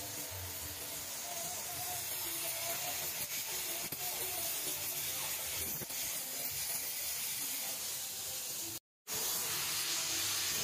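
Gas welding torch flame hissing steadily as it heats and welds an aluminium engine casing. The sound breaks off for a moment about nine seconds in, then the hiss returns brighter.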